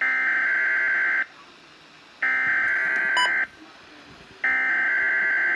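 Weatheradio Canada SAME digital alert header: three bursts of a rapid two-tone data warble, each just over a second long, with a pause of about a second between them. This is the coded header that marks the alert type and the areas affected ahead of the alarm tone.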